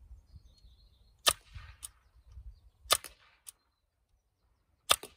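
Three shots from a Sig Sauer Virtus .22 semi-automatic PCP air rifle, about one and a half to two seconds apart, each a sharp crack, some followed by a fainter click. A low rumble of wind on the microphone runs underneath.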